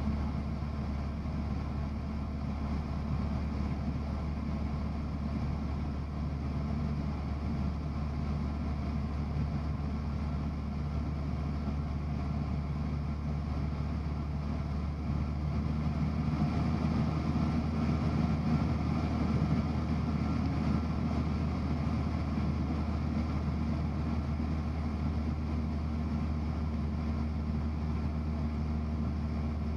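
Cessna 172's piston engine and propeller droning steadily in flight, heard from inside the cabin, growing slightly louder about halfway through.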